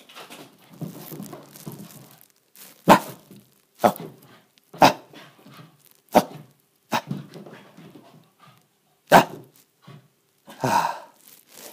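A Shiba Inu giving about seven short, sharp play barks at irregular intervals. The last bark comes near the end, is longer and more drawn out, and falls as the dog drops into a play bow, inviting play.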